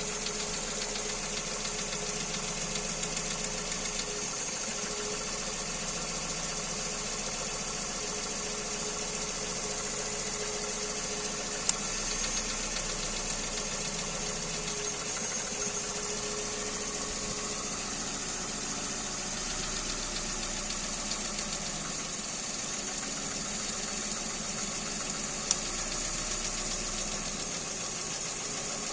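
Kia Rio's G4EE 1.4-litre four-cylinder petrol engine running steadily at idle with a knock from inside the engine. Two sharp clicks stand out, one a little before halfway and one near the end.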